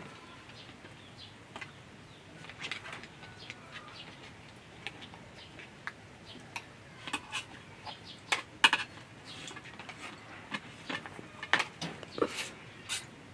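Irregular light clicks and taps of snail shells against plates and a plastic bowl as people eat snails by hand. The clicks get busier and louder in the second half.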